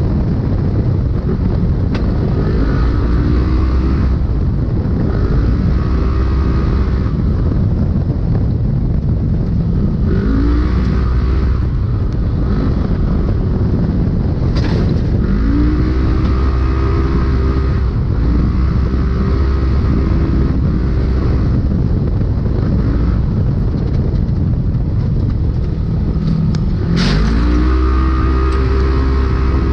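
Polaris Pro Stock UTV racing, heard from inside the car. The engine pitch climbs and levels off again and again under a constant heavy rush of noise. A few sharp knocks cut through, the loudest near the end.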